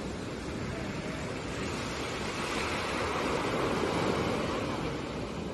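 Ocean surf washing up on a sandy beach: a steady rush of breaking waves that swells to a peak in the middle and then eases off.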